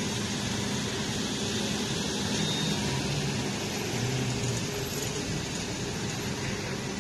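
A motor vehicle engine running steadily, a low hum that shifts slightly in pitch about halfway, under a constant wash of outdoor noise.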